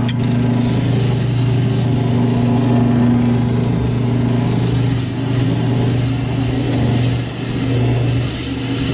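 Sand-Rite drum sander running with a loud, steady motor hum as a wooden oar is pressed against its spinning 80-grit sleeve, the abrasive grinding off old paint and weathered wood.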